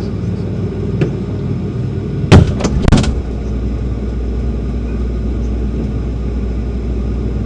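Two loud thuds about half a second apart, typical of a refrigerator door being shut, over a steady low hum.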